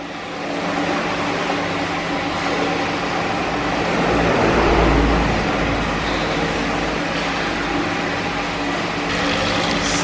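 Hot-spring water pouring from a spout into an indoor bath: a steady rush of falling water, with a low steady hum beneath it, briefly louder about halfway.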